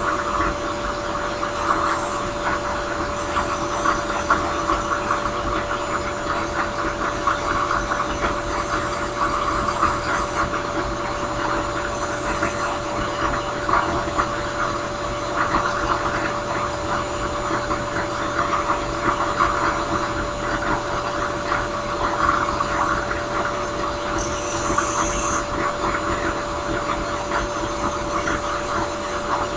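Drill press spinning a sanding drum with a steady motor hum, while a briar pipe bowl is pressed against the drum, making a rough sanding sound that swells and eases as the wood is worked. A brief high hiss near the end.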